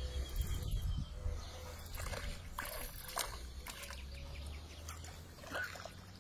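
Hooked trout splashing and thrashing at the water's surface as it is played in on the line, with short irregular sloshes of water.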